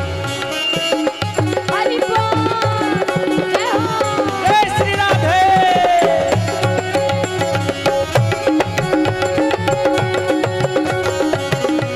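Devotional kirtan music: tabla playing a steady rhythm under sustained held tones. A melodic line slides up and down in pitch from about two to six seconds in.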